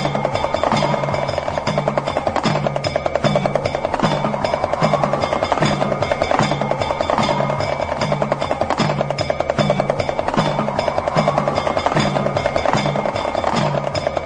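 Meditation music led by a damru, the small hourglass drum, rattled in a fast continuous roll. Under it runs a low drum-like pulse about one and a half times a second, and over it a tone slowly rises and falls.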